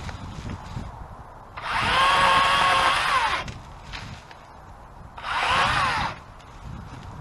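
Battery chainsaw's electric motor run in two short bursts, a longer one and then a brief one, each spinning up to a steady whine and winding down when the trigger is released.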